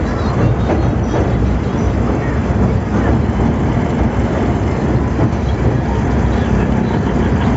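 Train running across a steel truss bridge: a loud, steady rumble of wheels on the rails, carried through the bridge's girders.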